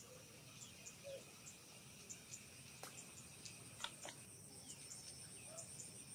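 Faint insect drone, a steady high buzzing of crickets or cicadas, with scattered short bird chirps and a few sharp clicks.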